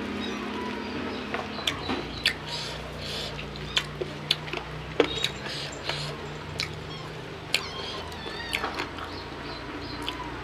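Hand-eating and chewing sounds: scattered wet mouth clicks and smacks and fingers working rice on a banana leaf, over a steady low hum. A few short high chirping calls come in near the end.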